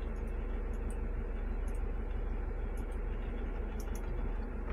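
Automated side-loader garbage truck running steadily, its engine and hydraulic lift arm working, heard from inside the cab, with scattered faint ticks.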